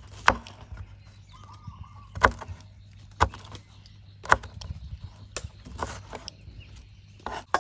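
A kitchen knife cutting cauliflower on a wooden cutting board: sharp knocks of the blade striking the board as it goes through the stalks, the loudest four about a second apart with lighter taps between.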